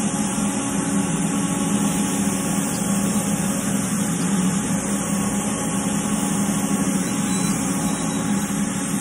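Steady low machinery hum with hiss, as from welding-shop machines and fans running, with no distinct events.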